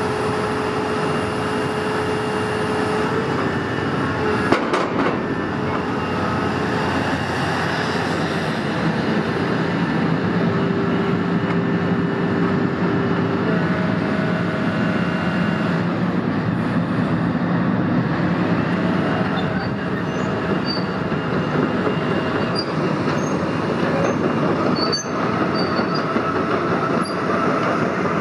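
Doosan DX480LC high-reach demolition excavator running as its demolition arm is worked. The hydraulics whine at a few steady pitches that shift every few seconds as the arm moves, over the diesel engine. There is one sharp knock about four and a half seconds in.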